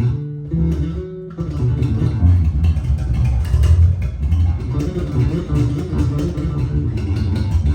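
Fodera Emperor II Elite electric bass with Duncan pickups being played: a few held notes, then from about a second and a half in a quick, busy line of notes with sharp attacks, in a tone its player hears as a little crispy.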